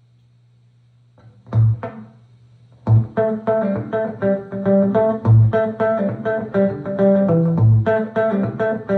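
Faint amp hum, then electric guitar licks through the Mason Dixon tube amp head with an Ibanez DM1000 slapback delay. A couple of notes come about a second and a half in, and steady playing with recurring low notes follows from about three seconds.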